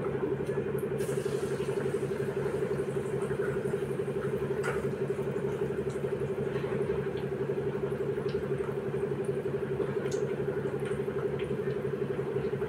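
A steady low mechanical hum runs throughout, with a few faint crackles from dal vadas deep-frying in bubbling oil in an iron kadhai.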